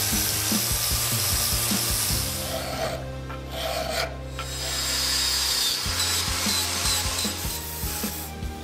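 Angle grinder grinding a forged steel spanner held in a vice. About three seconds in it gives way to a hand file rasping inside the spanner's ring end. Background music with steady low notes runs underneath.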